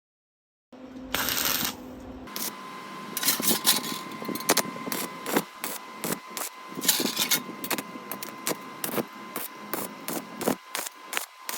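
A brief burst of hiss about a second in, then a run of sharp, irregular clicks and knocks of hand work on metal parts, two or three a second, over a faint steady tone.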